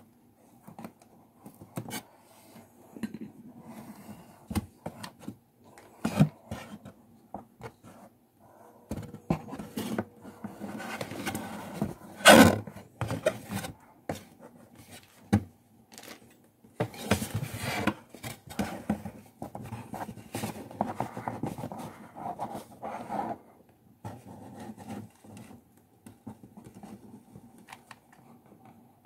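Stiff card panels of a 3D paper mask rustling, scraping and crackling as they are handled and pressed into shape, with scattered clicks and one loud crackle about twelve seconds in.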